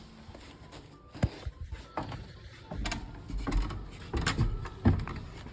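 Scattered clicks and knocks of things being handled, with a low rumble in the middle and two sharper knocks, about a second in and near the end.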